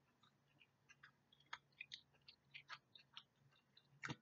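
A person chewing a soft chicken nugget with the mouth close to the microphone: faint, scattered wet mouth clicks rather than crunching, with a louder click near the end.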